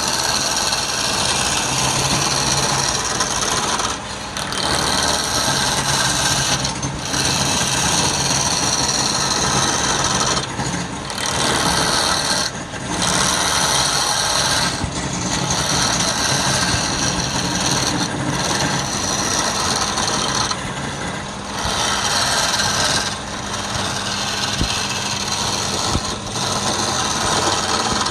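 Wood lathe running while a turning tool cuts the spinning wood, a steady motor hum under a hissing scrape. The cut breaks off briefly every two seconds or so as the tool is lifted and set back for another pass.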